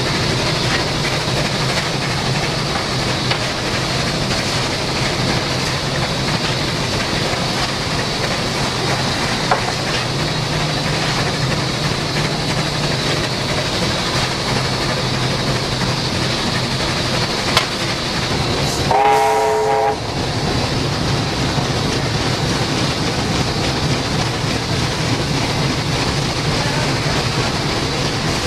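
NSW 38 class steam locomotive running with a steady rumble and hiss. About two-thirds through comes one short whistle blast of about a second, several notes sounding together.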